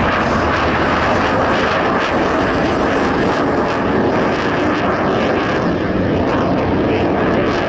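Jet noise from the Blue Angels' F/A-18 Super Hornets: a steady, loud rush of engine noise.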